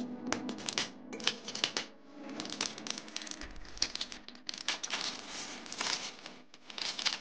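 A knife blade scraping against a glass jar: a rapid run of short scratchy strokes, with a brief lull about two seconds in.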